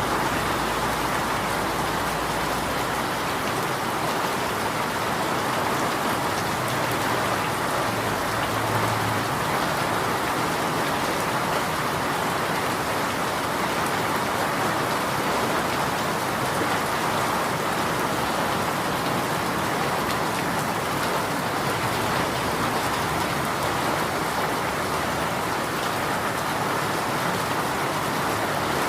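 Steady rain falling, an even hiss of drops on a surface that holds constant throughout.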